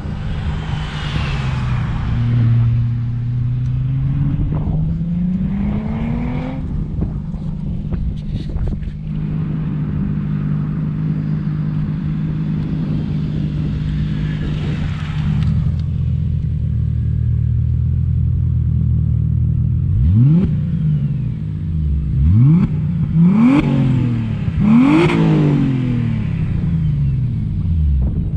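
Twin-turbo six-cylinder sports car engine idling, with a slow rev rise that drops back a few seconds in, then four quick throttle blips near the end.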